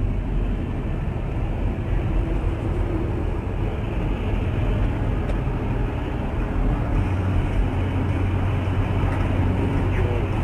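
Steady engine and road noise of a moving car, heard from inside the cabin as a low, even rumble.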